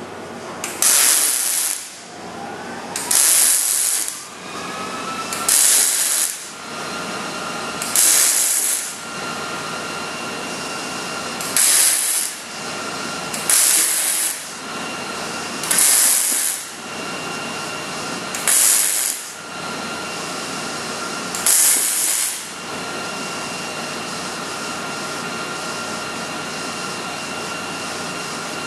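MIG welder laying stitch welds on a steel end-cap plate at the end of a frame rail: nine short bursts of arc crackle, each about a second long and a couple of seconds apart, stopping a little past two-thirds of the way through.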